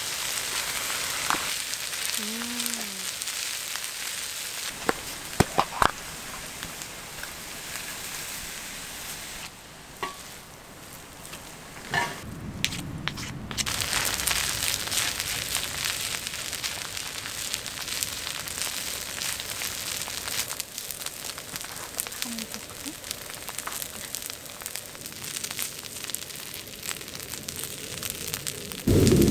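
Fried rice sizzling and crackling in a hot pan, with a few sharp knocks about five to six seconds in. The sizzle drops for a few seconds around the middle, then picks up again.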